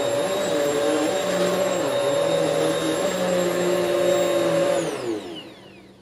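Hoover Swivel XL Pet bagless upright vacuum running on carpet, with a new brushroll belt fitted. Its pitch rises and falls as it works. About five seconds in it shuts off and winds down with a falling whine.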